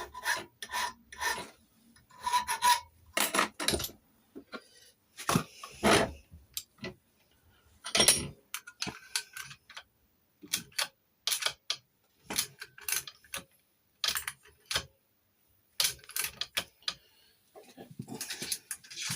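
Hand filing on a key blank in a series of short, uneven rasping strokes with brief pauses between them. It is taking a little metal off the bits where the lock's levers have left bruise marks, to impression a key for a Chubb lever lock.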